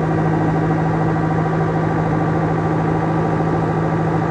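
Pressure washer running with a steady hum as its jet washes out a livestock trailer.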